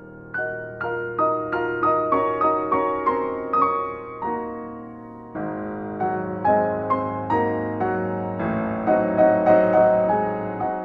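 Background music: solo piano playing a melody of struck notes that ring and fade, pausing briefly about halfway before a new chord.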